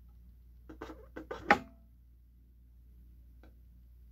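A young man's speech blocked by stuttering: a quick run of four or five short, clipped syllable attempts about a second in, the last the loudest, then a pause with only a steady low hum.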